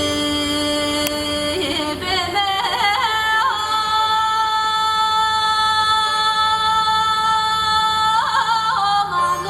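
A woman singing a slow Tibetan devotional melody, with quick ornamented turns between long held notes. The longest, a high note, is held for about four seconds in the middle.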